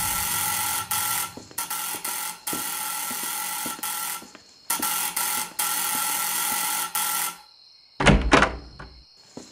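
Electric doorbell, a gong-type bell, ringing continuously in long rings with brief breaks, stopping about seven and a half seconds in. Two short thuds follow about a second later.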